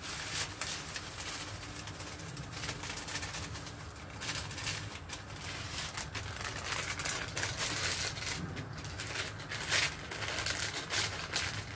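Foil seasoning sachet crinkling and rustling in the hands as it is opened and emptied into a pot, with irregular crackles throughout.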